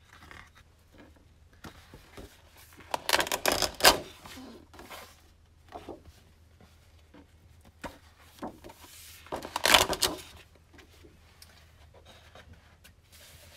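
Sheets of 12x12 scrapbook paper rustling and swishing as they are handled and laid down on piles: two loud swishes, about three and a half and nine and a half seconds in, with light paper taps and rubbing between.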